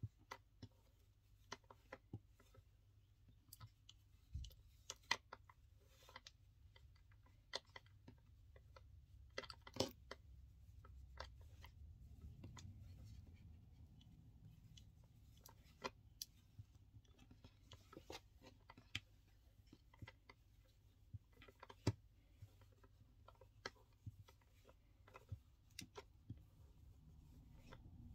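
Near silence with faint, irregular clicks and rubbing as hands tie macrame knots in cord around a metal keychain clasp, over a low steady hum.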